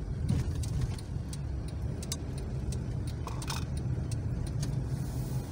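Road and engine noise inside a moving car's cabin: a steady low rumble, with scattered light clicks and rattles.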